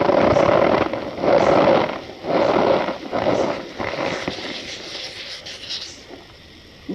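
Balls of compressed cornstarch being crushed by hand, giving a squeaky crunch in three or four strong squeezes, then softer crumbling crackles that fade.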